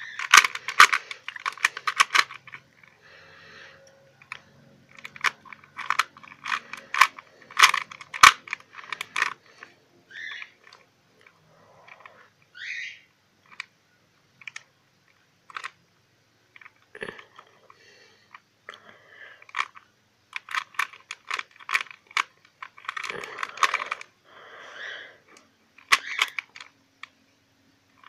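A plastic 3x3 Rubik's cube being turned by hand: quick runs of clicking and rattling as the layers snap round, in several bursts with pauses between.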